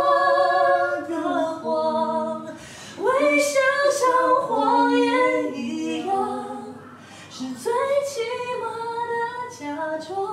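Two men singing a slow Mandarin ballad a cappella, one carrying the melody while the other sings a harmony line, with long held and sliding notes.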